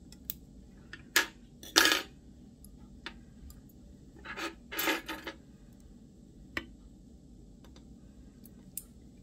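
Metal surgical instruments clicking and clinking as a needle is loaded into a needle driver and the forceps are handled. There are several sharp clicks, the loudest about a second and two seconds in, and a short cluster of them around five seconds in.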